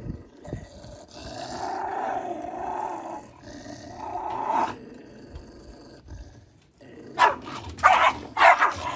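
Jack Russell terriers snarling: a long growl, then a second shorter one, and about seven seconds in a sudden bout of loud barking and snarling as two of them tussle.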